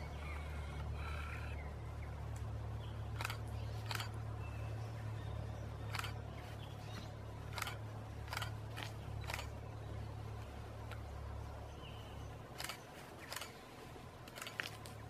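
Camera shutter clicking about nine times at irregular intervals, single shots and quick pairs, over a low steady rumble.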